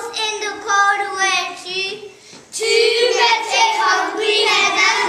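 Young children singing a counting rhyme, with held, sung notes and a short break about two seconds in before the singing picks up again.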